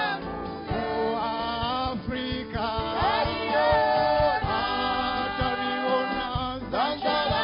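Several men singing a worship song together into microphones, with several voices at once over a regular low beat.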